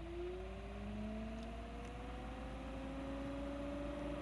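The newly fitted heater blower fan in an Alfa Romeo 1750 GTV's heater box spinning up on its high setting: a faint whir whose pitch rises steadily as the motor gathers speed.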